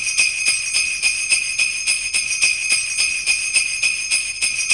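Sleigh bells shaken in an even rhythm, about four shakes a second, with a continuous high jingling.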